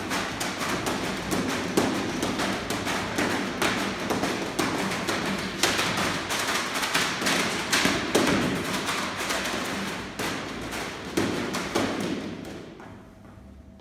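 Heavy battle ropes whipped in waves, slapping the gym floor mats in a rapid, continuous run of thuds; the slapping stops about twelve seconds in.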